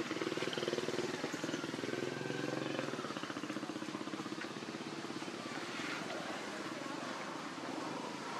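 A small engine running steadily with a low, pulsing hum, a little louder in the first few seconds.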